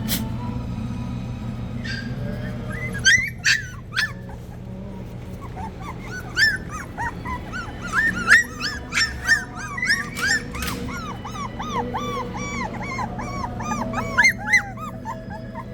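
Three-week-old Australian Cattle Dog puppies whimpering and yipping: many short, high squeaks that start about three seconds in and come thick and overlapping through the rest, with a few sharp clicks near the start of the calling and a steady low hum underneath.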